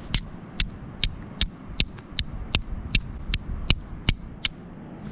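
A steel fire striker is struck against a flint about a dozen times, sharp scraping clicks at a steady two or three a second, throwing sparks onto char cloth to catch an ember.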